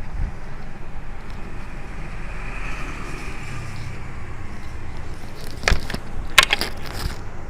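Steady background rumble like road traffic. A quick cluster of sharp clicks and knocks comes about two-thirds of the way in, from hand work on the TV set being opened.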